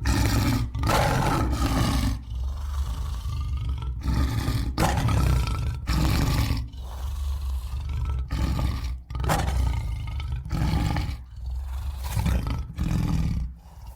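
Lion roaring sound effect: a long run of roars and growls, one after another, each about a second long, starting suddenly.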